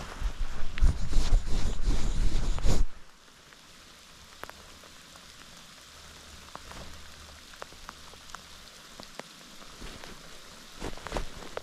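Rain falling, with scattered single drops ticking. For about the first three seconds it is much louder, a dense patter with a low rumble that cuts off abruptly; a short cluster of louder drops comes near the end.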